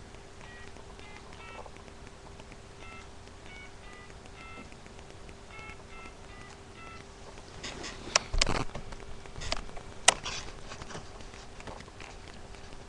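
Touch-tone telephone being dialed: about a dozen short two-tone keypad beeps in quick groups, with a faint steady hum underneath. Several sharp clicks and knocks follow near the end.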